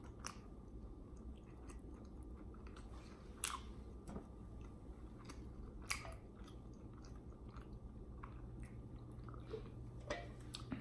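Faint close-up chewing of a mouthful of tuna sandwich: scattered soft, wet mouth clicks over a low steady hum.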